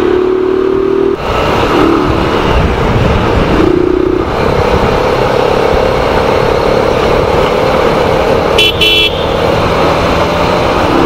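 Bajaj Pulsar 220 motorcycle running at highway speed, with a steady rush of wind and road noise. Vehicle horns honk several times: a long low honk at the start, short ones about two and four seconds in, and a brief higher-pitched toot near the end.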